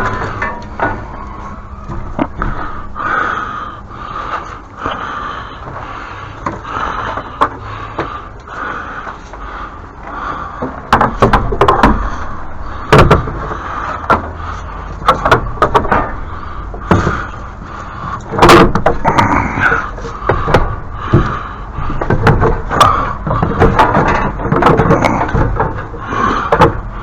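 Knocks and bangs of things being handled and set down, a scattered run that grows denser about halfway through, over a steady background noise.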